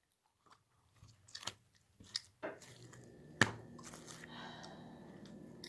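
Slime being squished and worked by hand: scattered faint clicks and pops, with one sharper click about three and a half seconds in.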